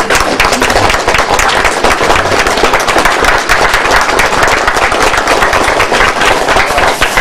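Audience applauding, a loud, dense patter of clapping that thins out just after the end.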